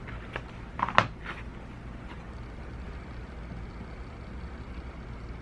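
A few light clicks and taps, the sharpest about a second in, over a steady low hum.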